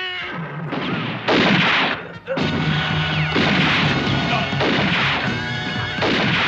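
A series of loud blasts, film gunfire-type sound effects, each trailing off in a long smear, the loudest about a second and a half in. Soundtrack music comes in underneath at about two and a half seconds.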